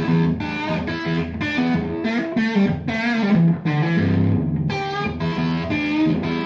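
Guitar-led intro music, with a steady rhythm of plucked, electric-sounding guitar notes.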